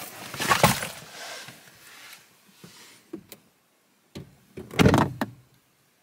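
Someone getting into a car: clothing and bag rustling, two light clicks, then the car door swinging shut with a heavy thud near the end, after which the closed cabin goes quiet.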